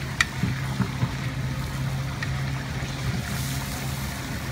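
Meat frying in a large cast-iron kazan while a metal paddle stirs it, with a sharp metallic clink just after the start and a few lighter knocks and scrapes against the pot. A steady low hum runs underneath.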